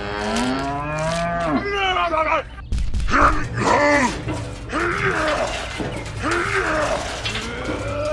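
Cow mooing: a long, drawn-out moo that bends in pitch over the first two seconds or so, followed by a run of shorter pitched calls.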